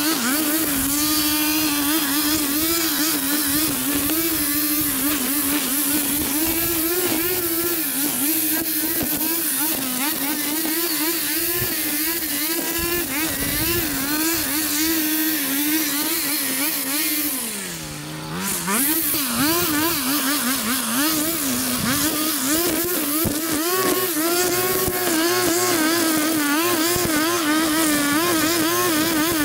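Small petrol engine of lawn-care equipment running under load through tall grass, its pitch wavering up and down. About 17 seconds in it sags lower and quieter for a moment, then picks back up.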